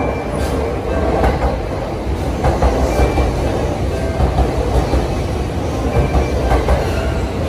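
JR East E657 series electric train rolling along the platform with a steady rumble, its wheels clacking over rail joints at irregular intervals.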